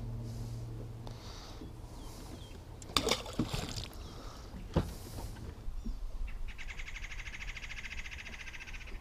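An angler casting from an aluminium fishing boat: a swish and a couple of sharp knocks about three seconds in, and another knock a little later. Near the end comes a rapid, even trill lasting about two seconds, with a low hum at the very start.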